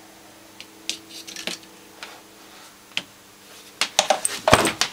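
Faint steady hum from an energised microwave oven transformer running unloaded, its ground wire left unconnected so nothing arcs, fading after about a second and a half. A few sharp clicks follow, then a quick cluster of louder handling knocks and clatter near the end.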